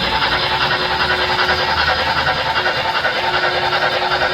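Model train running on layout track: a steady mechanical running noise with a thin held hum that drops out for about a second, around two seconds in, then returns.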